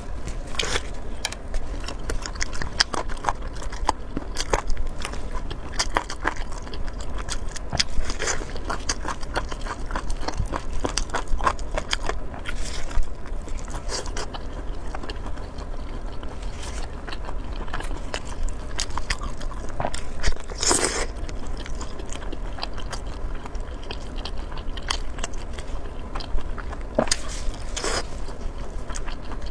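Close-miked eating sounds: a person chewing and biting, with frequent small sharp crunches and smacks. One louder, longer burst comes a little past two-thirds of the way through.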